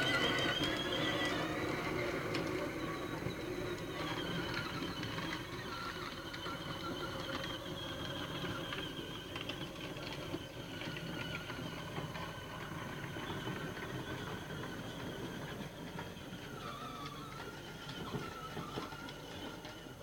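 Electric motors of a Peg Perego Polaris ride-on four-wheeler whining steadily as it drives. The whine slowly fades and dips briefly in pitch near the end.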